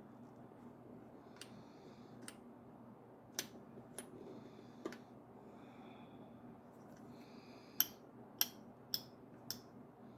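Sharp clicks and small knocks from the metal parts of an old sewing machine being handled. There are several faint clicks early on, then four louder clicks in quick succession near the end.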